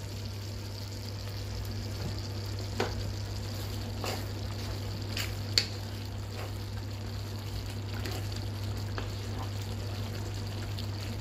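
Thick cream sauce with beef simmering and bubbling in a frying pan while a wooden spatula stirs through it; the sauce has reduced and thickened. A steady low hum runs under it, and a few light clicks come between about 3 and 6 seconds in.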